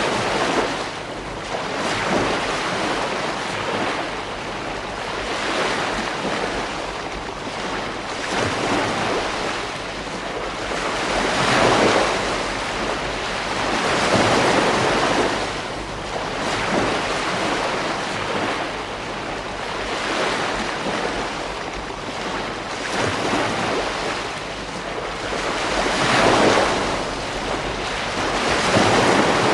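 Beach surf: waves breaking and washing up the shore one after another, the wash swelling and fading every few seconds, loudest near the middle and toward the end.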